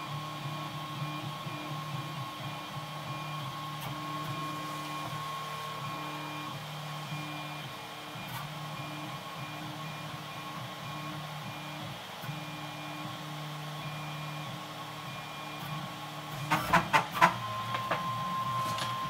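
Home-built Smartrap-based RepRap 3D printer printing, its stepper motors whining in steady tones that change pitch with each move of the head and bed. Near the end comes a quick cluster of sharp clicks, the loudest sound.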